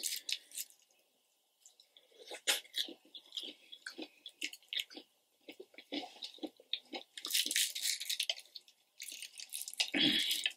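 Crispy breading of a KFC fried chicken thigh crackling as it is pulled apart by hand close to the microphone: scattered small crunches and clicks, with denser crackling bursts about seven and nine seconds in.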